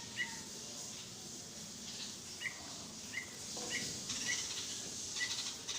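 Small bird chirping: six short, sharp calls, each dropping quickly in pitch, spaced irregularly about half a second to two seconds apart.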